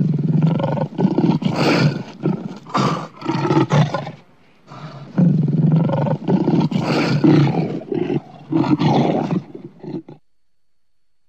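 Lion roaring in a run of loud, uneven bursts, with a brief lull about four seconds in. It stops about ten seconds in.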